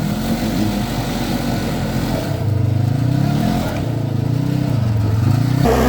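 Side-by-side UTV engine running as it is driven, its pitch rising and falling several times with the throttle, then settling to a steadier tone near the end.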